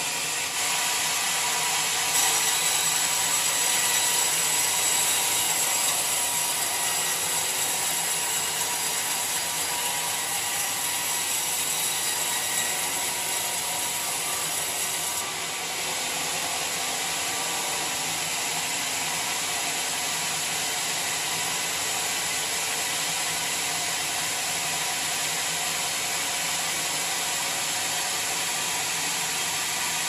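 Sawmill's large vertical band saw running, its blade cutting through mahogany with a steady high hiss; the sound is a little louder in the first half and drops slightly about halfway through.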